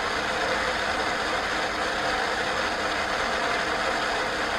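Steady radio static hiss, as from a spirit box sweeping between stations during a question-and-answer ghost session.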